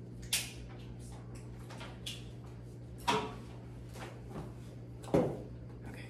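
Three sharp knocks, the loudest about five seconds in, with a few fainter clicks, from objects being handled, over a steady low hum.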